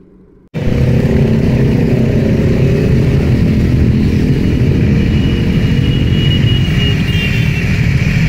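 Motorcycle on the move: a loud, steady engine-and-wind rumble that cuts in suddenly about half a second in, after a short quiet stretch.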